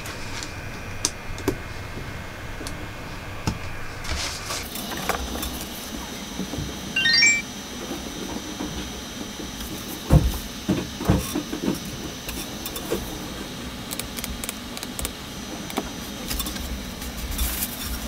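A wireless mini keyboard being handled and set down on a wooden desk: scattered clicks and knocks, a louder thump about ten seconds in, and quick key clicks near the end as typing starts, over a steady background hum.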